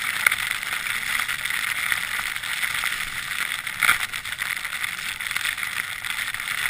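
Skis sliding and scraping over snow: a steady hiss with small scratchy crackles and one louder scrape about four seconds in.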